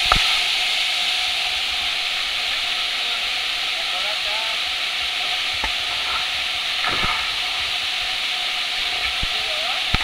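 Waterfall's rushing water, a steady hiss throughout, with a few short knocks scattered across it.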